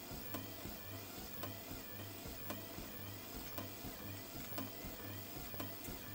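Motorised treadmill running with a person walking on it: low footfall thumps on the belt about twice a second and a sharp click about once a second, over a whine that wavers in time with the steps.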